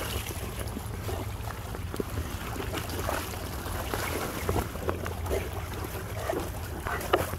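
Fast-flowing, muddy creek water rushing steadily, with irregular small splashes as Rottweilers wade and nose through it, over a constant low rumble.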